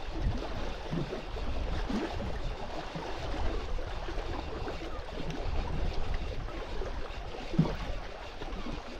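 Sea water washing and gurgling against a rocky shore, with a steady low rumble underneath.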